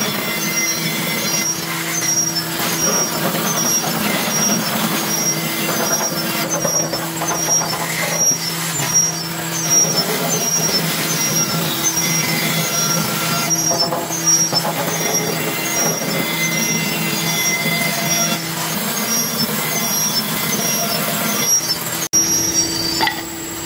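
Bandsaw running and cutting through a wooden board: a steady motor hum under the rasp of the blade in the wood, with a light tick repeating about twice a second. The sound breaks off briefly near the end and resumes.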